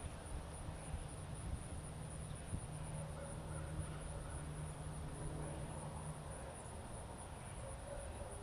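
Open-field ambience: a low steady rumble and a thin steady high-pitched whine, with a few faint distant bird calls about three to four seconds in and again near the end.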